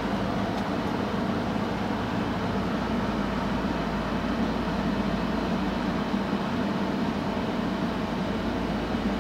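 River towboat's diesel engines running steadily with a low drone while it pushes loaded barges upstream.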